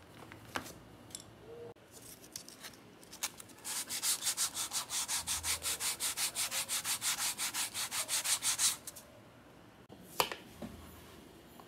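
Sandpaper rubbed by hand along the stacked edge of a leather wallet, in quick, even back-and-forth strokes, about five a second, for about five seconds. Light handling clicks come before it, and a sharp click follows as the leather is picked up.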